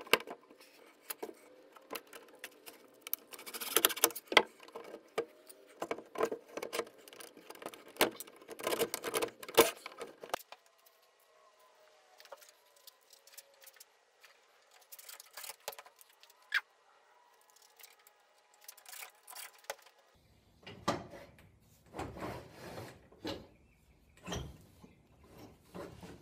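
Hand file rasping across the steel locking plates of a pipe clamp, cutting grooves so they bite the pipe, in irregular bursts of strokes. After a quieter stretch in the middle, small metal parts clink and rattle as they are handled.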